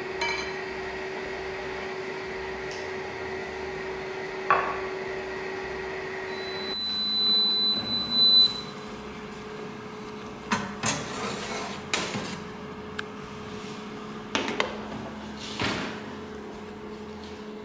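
Steady machine hum with a single knock. Then a Unox countertop oven's door is swung open with a swelling rush of noise, and a metal baking tray is pulled out and handled with several sharp knocks and clatters.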